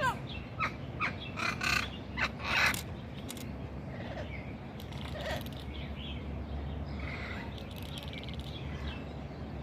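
Parrot squawking: a quick run of short, harsh calls in the first three seconds, then a few fainter calls.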